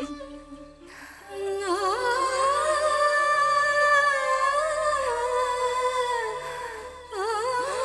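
Background film music: a wordless vocal melody with heavy vibrato over a sustained backing. It enters about a second and a half in and breaks off briefly near the end before carrying on.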